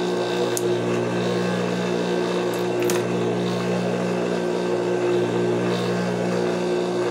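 Juki industrial sewing machine motor running with a steady hum, with a couple of light clicks.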